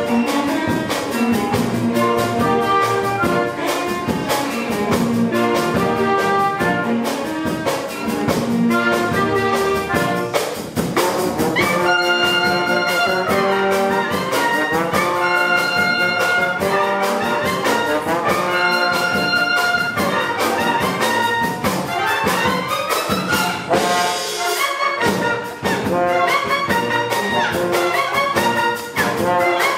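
Youth orchestra playing a piece live: violins, cellos, double bass and clarinet together with trombones and a trumpet, the brass prominent. Long held chords come in about twelve seconds in.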